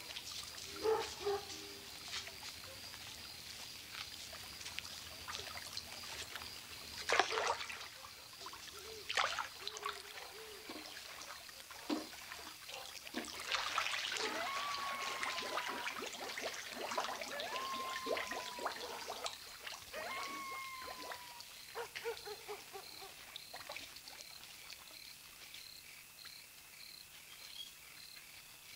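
Swimming-pool water splashing and trickling in scattered short bursts, the loudest about seven seconds in. A steady, high chirring of crickets runs underneath, and three short whistled calls come in the middle.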